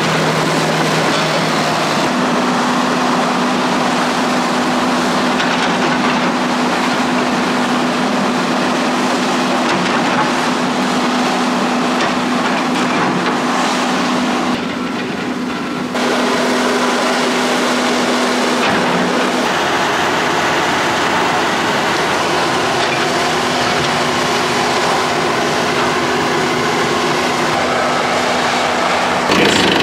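Diesel engines of a John Deere crawler dozer and excavator running while working, a loud steady machine drone that changes abruptly a few times.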